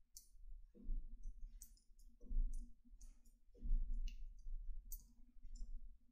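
Faint clicks and low thumps, swelling about every second and a half, from a person moving in her seat close to the microphone.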